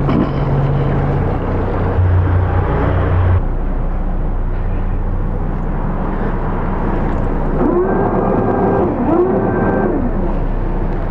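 Motor yacht's engines idling with a steady low hum. A noisier run over the first few seconds stops abruptly, and near the end two short whines rise, hold and fall, about a second each.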